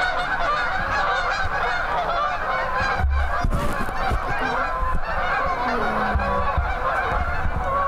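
A large flock of geese flying overhead, many birds honking at once in a dense, continuous chorus.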